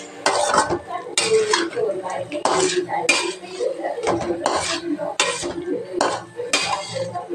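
Metal spatula scraping and clanking against a steel pan while stirring a thickening brinjal gravy, in a steady run of strokes about once or twice a second.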